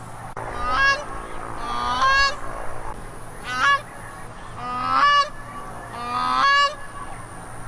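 A goose honking repeatedly: five loud, pitched honks about a second and a half apart.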